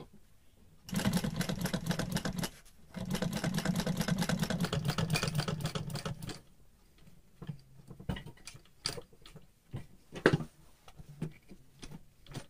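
Industrial sewing machine top-stitching denim in two short runs of rapid, even stitching, the second longer, about three seconds. After that come scattered light clicks and handling noises.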